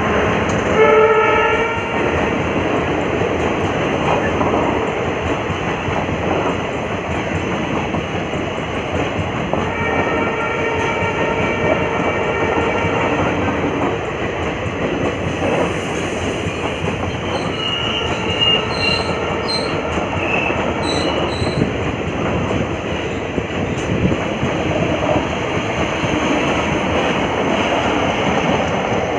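Train rolling past with continuous wheel and rail noise behind a WDM-3A diesel locomotive. The locomotive's horn sounds briefly about a second in, then again, held for about four seconds, near the middle. A few brief high squeals come a little later.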